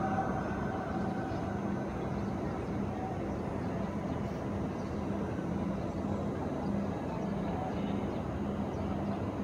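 Steady ambient hum of a vast crowd of worshippers in the open courtyard around the Kaaba, a diffuse murmur with no clear voice, heard in the hush between the imam's amplified calls.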